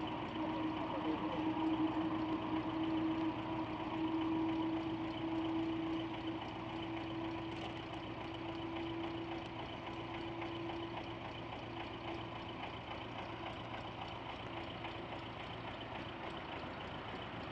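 A vehicle engine idling steadily, with a steady hum that fades out over the first half.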